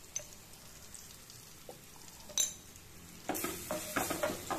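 Metal slotted spoon stirring and scraping frying onions, tomatoes and spice powder in a stainless steel pan, over a faint frying sizzle. The pan is quiet at first apart from a single clink about two and a half seconds in; the stirring begins about a second later.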